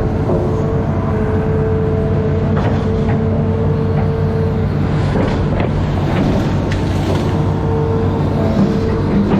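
Amphibious excavator's diesel engine running steadily under a constant whine, with scattered short knocks and clanks in the middle stretch.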